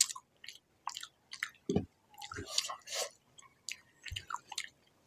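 Close-miked wet chewing of pork fat and rice, with irregular mouth clicks and smacks. Two brief low thuds come about two and four seconds in.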